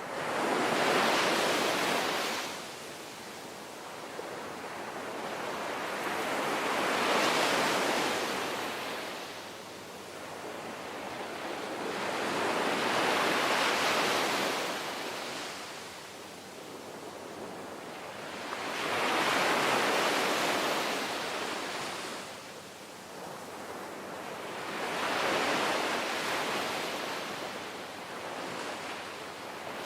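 Sea waves washing in and breaking, the surf swelling and fading in five surges about six seconds apart.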